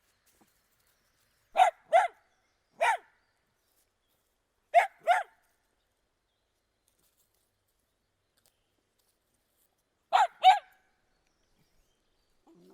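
A dog barking in short, sharp barks: a quick double bark, a single bark, another double, then after a long silence one more double bark.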